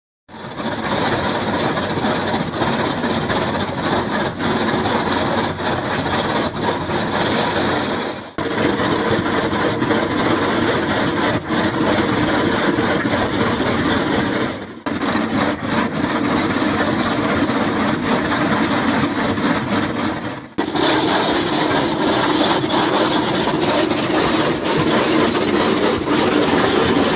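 Excavator-mounted MH100 hydraulic chain trencher digging a trench, its cutting chain grinding through the ground over the steady running of the excavator's engine and hydraulics. The noise breaks off briefly three times, about 8, 15 and 20 seconds in.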